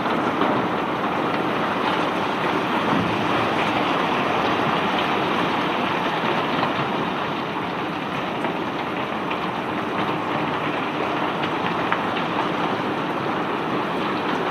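Bulk crushed rock pouring steadily off a barge during unloading: a continuous rushing hiss with a light rattle of many stones, easing off slightly midway.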